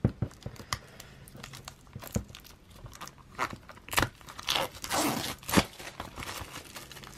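Plastic shrink wrap being picked at and torn off a Blu-ray case by hand: scattered crackles and clicks, with louder stretches of tearing and crinkling about three and a half to five and a half seconds in.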